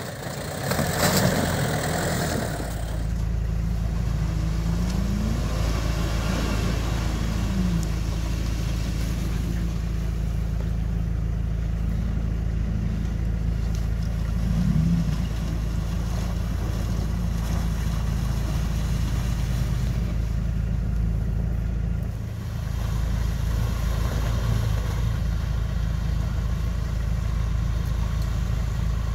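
Off-road 4x4 engines running steadily as the vehicles crawl through a rutted mud-and-snow track, with a few brief revs rising and falling in pitch.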